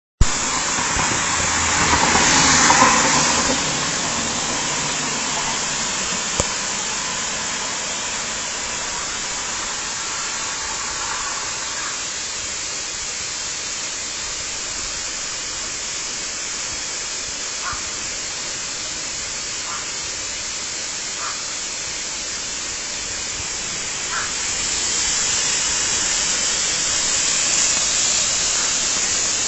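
Waterfall: a steady rush of falling water, swelling a little about two seconds in and again near the end.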